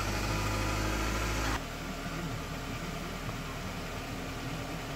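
Nissan sedan's engine idling with a steady low hum. About one and a half seconds in, the overall noise drops abruptly, leaving a quieter hum.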